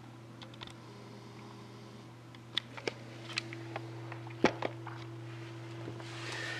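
A scattered run of short, sharp clicks and taps, the loudest about four and a half seconds in, over a steady low electrical hum; a soft rustle near the end.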